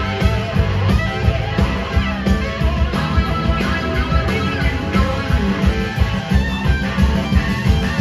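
Live rock band playing, with electric guitars over drums keeping a steady beat.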